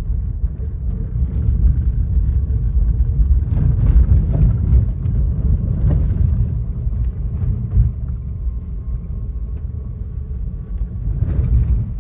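Tyre and road noise of a Rivian electric vehicle driving on a gravel road, heard inside the cabin: a steady low rumble with no engine note, with a few sharp ticks.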